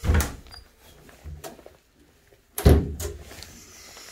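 Wooden closet doors being pushed and handled: two loud thuds about two and a half seconds apart, with a smaller knock between them.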